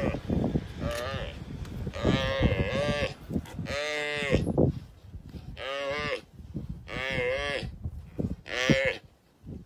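Oryx bleating in distress while being eaten alive by African wild dogs: about six drawn-out, moaning calls, each bending up and down in pitch, with low scuffling between them.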